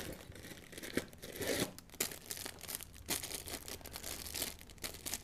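Packaging rustling and crinkling with scattered light clicks as oscillating multi-tool blades and abrasive attachments are handled.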